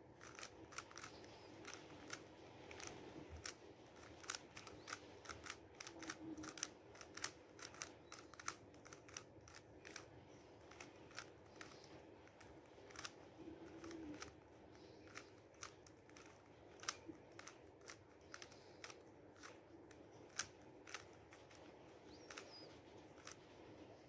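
A 3x3 Rubik's cube is being turned by hand, its plastic layers snapping round in an irregular run of sharp clicks and clacks, about two or three a second, that thins out near the end.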